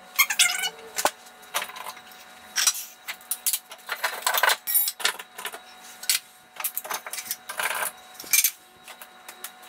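Wooden floating shelves with metal strap brackets and framed pictures being lifted off the wall and handled: a quick run of clinks, knocks and metallic rattles, some ringing briefly.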